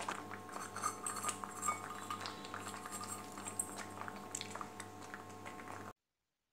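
Spatula and spoon clinking and scraping in a metal kadhai, with small scattered clicks as semolina halwa thickens and bubbles, over a low steady hum. The sound cuts to silence shortly before the end.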